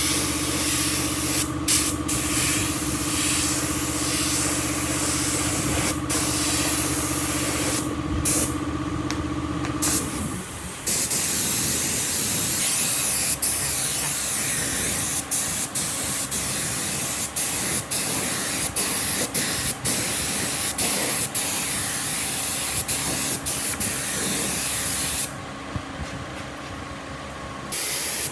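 Air spray gun hissing steadily as finish is sprayed, the spray stopping briefly about eight seconds in and again near the end. A steady hum runs beneath it for the first ten seconds or so, then stops.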